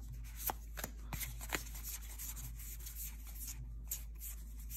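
Magic: The Gathering trading cards being flipped and slid through the hands. There are four sharp card snaps in the first second and a half, then softer rustling of card on card.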